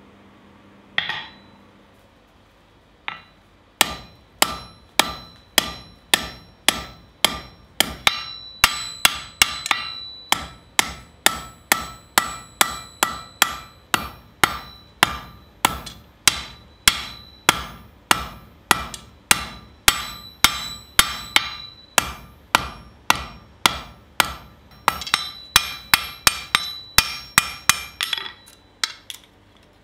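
Blacksmith's hammer beating a red-hot steel bar on an anvil. After a couple of single blows it settles into steady hammering at about two blows a second, with the anvil ringing after each blow. The last few blows, near the end, ring the most.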